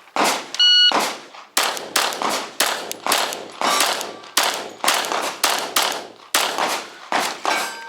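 A shot-timer start beep, then a fast string of 10mm pistol shots from a Glock 20SF, about three a second, each crack trailing off in a short echo.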